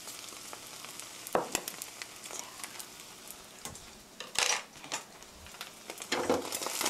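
Beaten eggs frying in grapeseed oil in a frying pan: a steady sizzle with many small crackles and pops. A few louder clicks and spits stand out, the loudest about four and a half seconds in.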